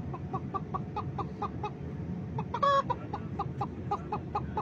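A person imitating a clucking hen: a rapid string of short clucks, about four a second, broken by one louder squawk about two and a half seconds in. Under it runs the steady drone of an airliner cabin.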